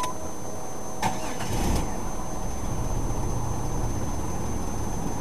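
1994 Chrysler LHS 3.5L V6 started: about a second in the starter cranks briefly and the engine catches, then settles into a steady idle. The exhaust sounds louder than stock because the catalytic converters are opened up.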